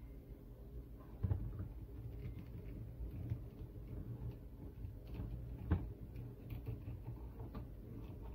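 Handling of an S.H. MonsterArts Burning Godzilla action figure: scattered small clicks and taps as fingers grip it and work its stiff joints, the sharpest about a second in and again near six seconds, over a steady low hum.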